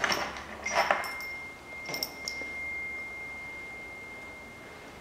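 Metal parts knocked together by hand, a few sharp clicks and knocks; a knock about a second in leaves a clear single-pitch ring that slowly dies away over about four seconds.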